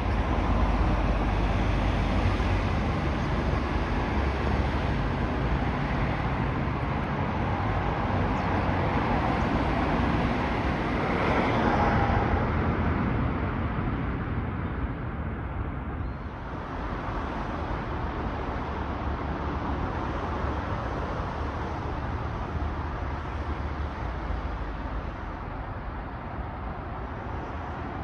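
Road traffic noise: a steady rumble of vehicles, swelling as one passes about eleven to twelve seconds in and easing off a few seconds later.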